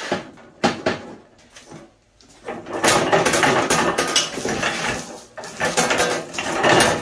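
A few separate clanks, then from about two and a half seconds in a continuous loud metallic rattling and clattering as the wire shopping-cart welding cart, loaded with a Lincoln Weld-Pak 100 welder, is moved on a concrete floor.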